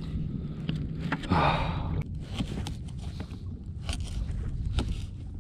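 Hands handling gear in a small inflatable boat: scattered clicks and knocks over a low rumble, with a breathy exhale about a second and a half in.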